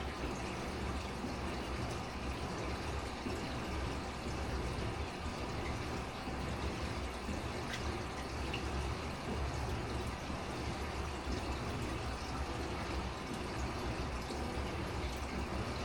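Aquarium filter running: a steady pour of water into the tank, with a low hum underneath.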